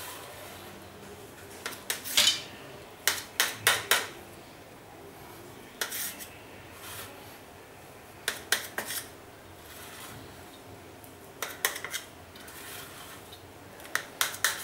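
Knife blade clinking and scraping against a stainless steel plate in short clusters, as it cuts a ball of dough into equal wedges.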